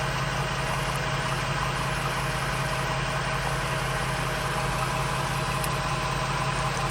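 ARB onboard 12 V air compressor running steadily, pumping air into a tire through its hose, with the Ford Transit's engine idling underneath.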